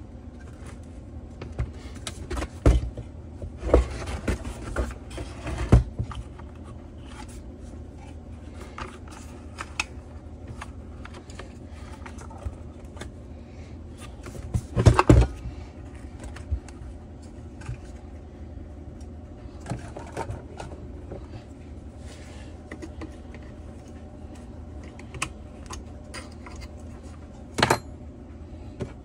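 Handling of a Stihl TS 700/800 cut-off saw's body and parts on a workbench: scattered knocks, clicks and scrapes of plastic and metal, with a louder clatter about halfway through as the saw is turned over.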